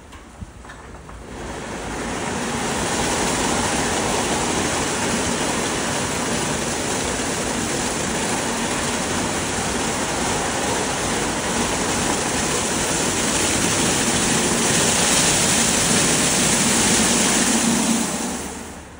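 WashTec gantry car wash running another wash pass over a car: an even rush of water spray and rotating brushes. It swells in about a second and a half in, holds steady, and dies away near the end.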